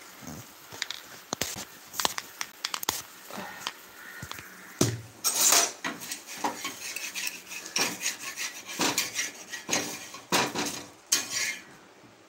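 A metal utensil scraping and clinking against a dosa pan while a dosa is worked loose and lifted: a string of irregular scrapes and clicks, busiest in the second half, with a heavier knock about five seconds in.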